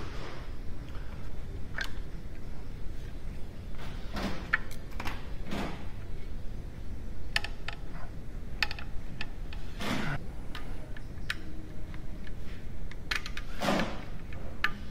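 Scattered clicks and short rustling scrapes of plastic electrical connectors being unclipped and a wiring harness being handled and pulled on the engine, over a steady low hum.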